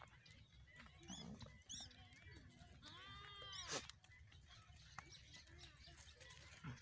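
A goat bleats once, a single call under a second long about three seconds in, rising and then falling in pitch.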